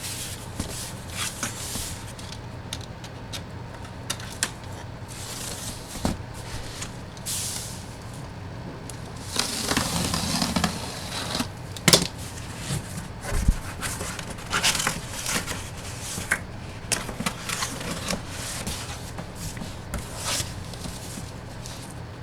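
A collectible-photo box being opened and handled by hand: cardboard and plastic packaging rustling and crackling, with scattered clicks and taps. There is a longer rustling stretch about ten seconds in and a sharp tap shortly after.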